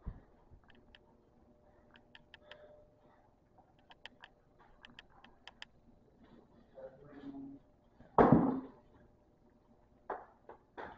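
Objects being handled: scattered light clicks and taps, with a louder thump about eight seconds in.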